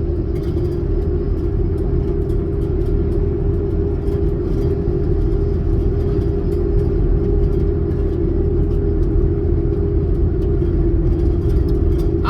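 Steady road and engine noise of a car driving at highway speed, heard from inside the cabin: a constant low rumble with a steady drone.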